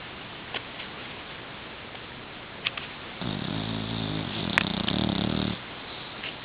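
A sleeping boxer puppy snoring: one long snore starts about three seconds in and lasts about two seconds. A few small clicks come before and during it.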